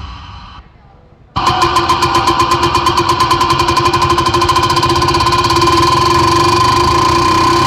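Music fades out, then about a second and a half in an engine-like buzzing drone cuts in suddenly, holding a steady pitch while its pulse gets steadily faster, like a motorbike revving effect in a DJ track.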